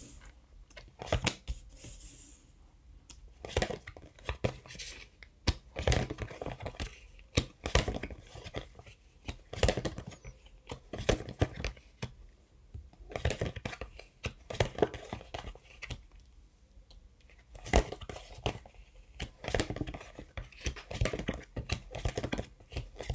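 Oracle cards being dealt one at a time onto a wooden tabletop, each placed with short papery clicks and scrapes of card stock, coming in clusters every second or two.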